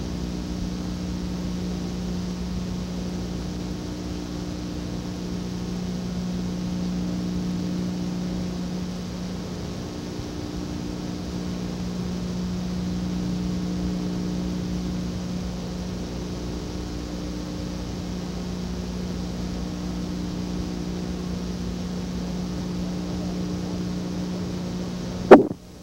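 Steady electrical hum with even tape hiss from an old analogue broadcast recording, with no commentary over it. A single sharp click near the end, where the audio cuts.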